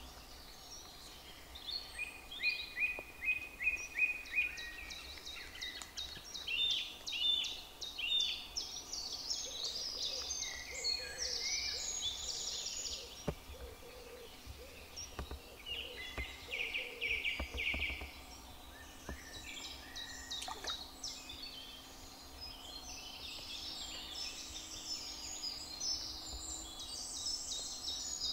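Several songbirds singing together in an evening chorus: quick repeated notes and trills from different birds, overlapping and following one another throughout.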